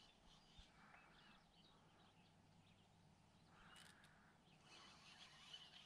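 Near silence: faint outdoor ambience with a few soft, indistinct sounds.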